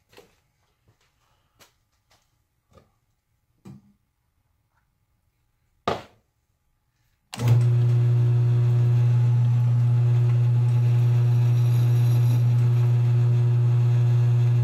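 A few faint clicks and knocks, and one louder knock about six seconds in, then the early-1950s Sheldon lathe switches on a second or so later and runs steadily, with a strong, even hum from the motor and spinning chuck.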